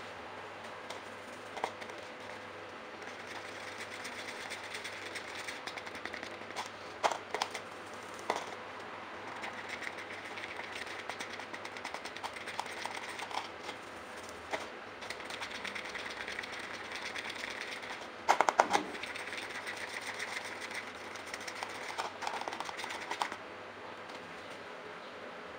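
A thin metal rod stirring and scraping a thick mix of clear resin and powder around a small plastic cup, in stretches, with scattered sharp clicks and a quick cluster of them about two-thirds of the way through.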